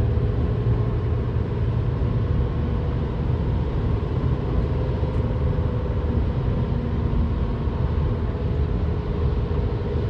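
Steady road and engine noise heard from inside a car cruising on the highway: a constant low rumble with no sudden events.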